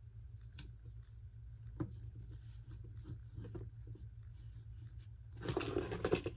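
Hands handling small parts and wire on a model crossing gate: scattered light clicks and taps, then a louder scratchy rustle near the end, over a steady low hum.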